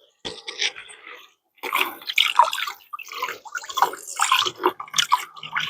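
Water from a portable water heater's spray head splashing onto a plate being washed, in uneven bursts with a short pause about a second and a half in.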